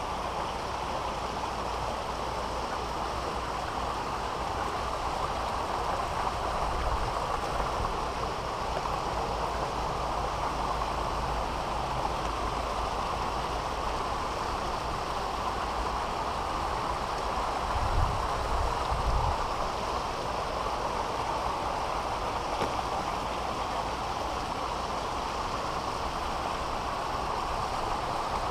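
Steady rush of running water in a fish-hatchery rearing pond area, with brief low rumbles on the microphone about 18 seconds in.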